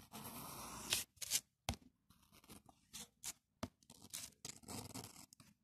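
Carbon (graphite) electrode rod from a zinc-carbon battery cell scratching across paper as it draws. A steady scratchy rasp for about the first second, then a run of short, sharp scratches and taps.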